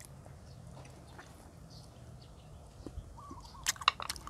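Quiet background with a faint low hum and a couple of short bird calls. Near the end, a few sharp clicks from people eating at the table.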